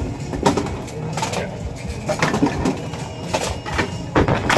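Bowling ball rolling down a wooden lane and striking the pins, which clatter and scatter into the pit about three and a half seconds in. Under it, the automatic pinsetter's machinery runs with a low rumble and scattered knocks.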